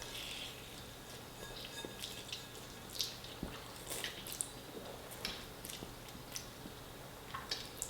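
Close-up wet eating sounds of spaghetti in tomato sauce being chewed: scattered short clicks and squelches at an uneven pace.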